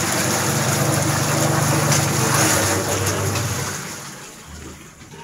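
Vacuum emulsifying mixer's agitator churning water in its stainless-steel tank: a loud rushing, splashing wash over a steady low motor hum, which dies away about four seconds in.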